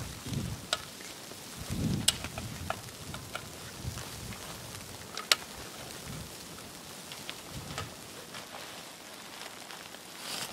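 Wind gusts buffeting the microphone in the first two seconds, then a soft outdoor hiss with scattered sharp ticks and taps.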